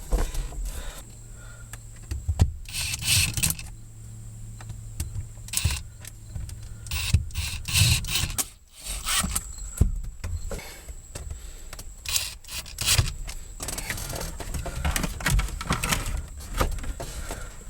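Metal shifter parts and hand tools clinking, knocking and rattling in short, irregular strokes while a short shifter is being fitted. A low steady hum runs underneath for the first several seconds.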